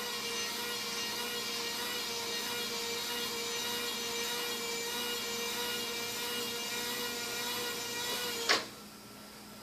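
Remote-control model crane's electric hoist motor running steadily, a whine with several pitched tones, while it hoists the block. It stops with a short click about a second before the end.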